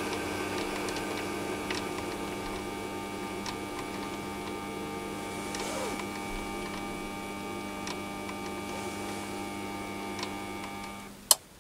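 Chinese mini lathe motor running slowly with a steady hum and whine, and faint ticks about every two seconds. Near the end the motor stops and a single sharp click follows: the speed-control potentiometer's built-in switch turning off as the knob reaches its fully anticlockwise stop.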